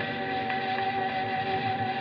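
Music from a record playing on a 1946 RCA Victor phonograph, heard through the set's own speaker, with long held notes.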